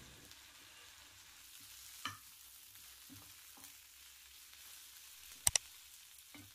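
Malabar spinach leaves wilting in oil in a pan with a faint, steady sizzle. A few light knocks of the stirring spoon against the pan, the sharpest two close together about five and a half seconds in.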